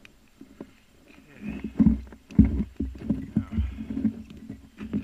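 Footsteps crunching and thumping in snow close to the microphone: a run of irregular heavy steps that starts about a second and a half in.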